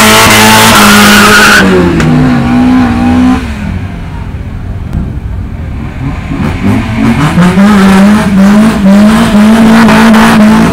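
Honda four-cylinder engine held at high revs at the start line while the tyres spin and squeal in a burnout for the first second and a half. The revs then fall away. About six and a half seconds in, the engine is revved up again and held high, the pitch wavering.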